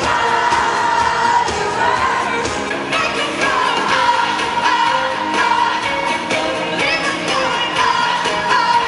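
Female pop vocalist singing live over a full band at an arena concert, holding long notes that slide between pitches.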